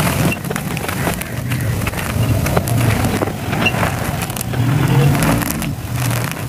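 Hands crushing and crumbling a dry sand-and-cement lump, a dense crackle of grit breaking as powder and grains pour between the fingers, over a low rumble from the mass grinding in the hands.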